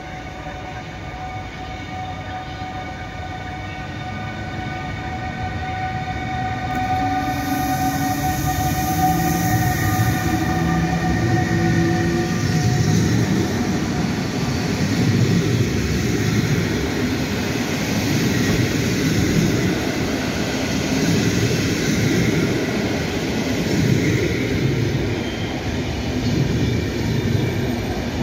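A Newag Griffin EU160 electric locomotive hauls a PKP Intercity passenger train past. For the first dozen seconds there is a steady whine at several pitches, one tone rising near the end of it. Then comes a growing rumble and clatter of coach wheels on the track as the carriages roll by.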